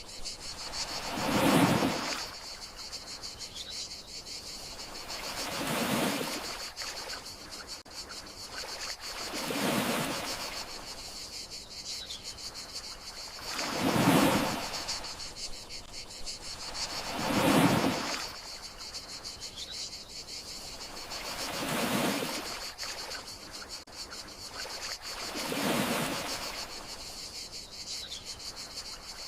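Gentle sea waves washing onto the shore about every four seconds, each one swelling and fading away, over a steady high chorus of crickets.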